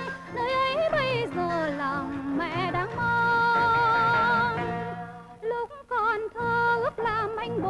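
A singer performing a song with vibrato over instrumental accompaniment, holding one long note about three seconds in.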